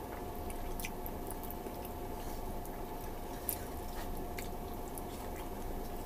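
Faint, wet close-up eating sounds: chewing, and fingers tearing and squishing sticky beef balbakwa stew over rice, with a few soft clicks over a steady background hum.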